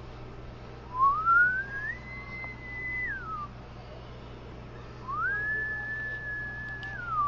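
A person whistling two long notes: the first slides up about a second in, holds high, then slides down; the second rises sharply about five seconds in, holds, and falls away near the end. A low steady hum runs underneath.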